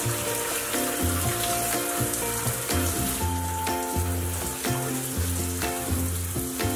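Steady hiss of a running shower spraying onto the shower floor, under background music with a melody and a bass line stepping from note to note.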